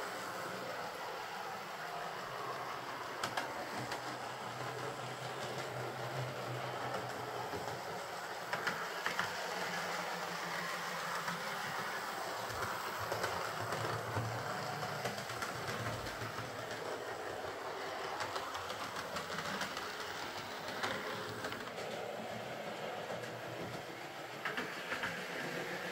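Hornby Class 43 HST OO gauge model with a ringfield motor running along the track: a steady motor hum, with wheels clicking over rail joints now and then.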